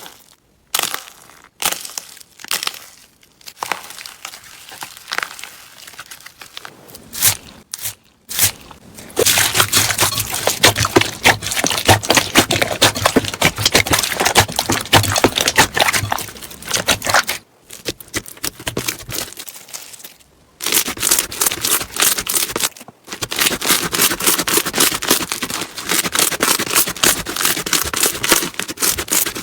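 Slime being squeezed and poked by hand, giving dense crackling and popping. It comes in several stretches, split by short silent breaks, and is loudest about halfway through and again near the end.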